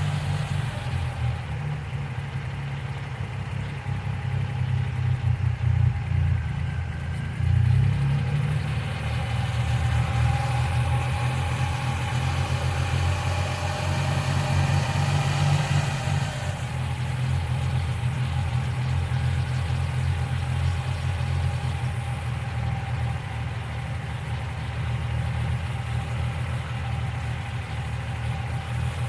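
1995 Geo Metro engine idling with B-12 cleaner mixed into its oil, a little louder and uneven in the first half. The engine is running rough, but the lifter tick has gone quiet.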